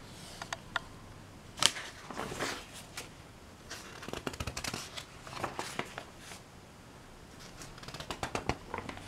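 Old magazine pages of aged newsprint being handled and turned, paper rustling and crackling in short bursts. There is one sharp crackle a second and a half in, then clusters of rustling around the middle and near the end.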